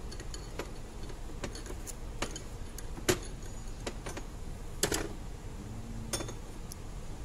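Scattered sharp metallic clicks and taps, about seven of them, as a screwdriver works at the hub of a steel gear, fitting parts into it; a double click about five seconds in rings briefly.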